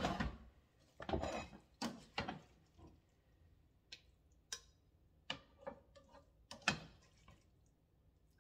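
Kitchen utensils and dishes knocking, clinking and scraping: a string of separate short knocks and scrapes, the loudest at the start and about two-thirds in.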